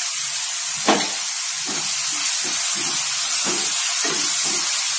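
Karonda halves, garlic cloves and green chillies sizzling in hot mustard oil in a frying pan. There is a single knock about a second in. From about a second and a half in, a spatula stirs and scrapes through the pan at roughly two strokes a second.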